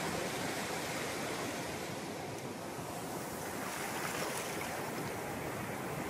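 Surf breaking on a sandy beach and the foamy wash running up over the wet sand: a steady rushing noise that swells slightly about four seconds in.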